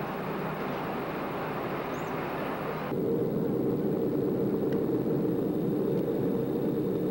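Steady airliner cabin noise from the jet engines and airflow. About three seconds in it shifts abruptly to a lower, louder hum.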